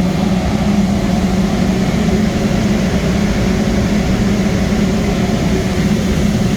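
Two commercial steam boilers firing: steady machinery noise of their burners and blower fans, with a strong low hum.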